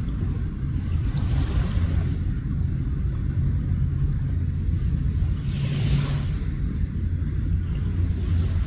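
Waves washing against the rocks of a jetty over a steady low rumble, with a louder wash about six seconds in.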